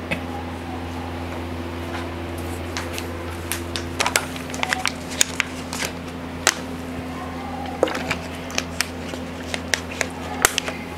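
Steady low electrical hum with scattered, irregular small clicks and taps.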